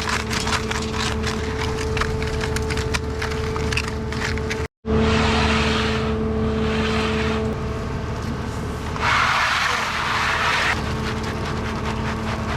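Concrete mixer truck running with a steady engine drone under dense crackling and rattling. The sound cuts out for an instant just under five seconds in, and two stretches of rushing hiss follow.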